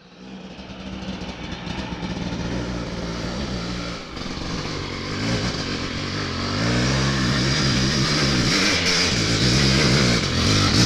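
Honda CR500 two-stroke dirt bike engine climbing a steep hill, growing louder as it comes closer. About halfway through, the engine note rises and falls over and over as the rider works the throttle on the climb.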